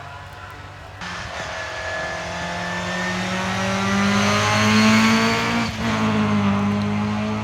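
Racing car accelerating hard on a hillclimb, its engine note climbing in pitch as it revs. It grows louder to a peak about five seconds in, with a brief cut in the note near six seconds in at a gear change.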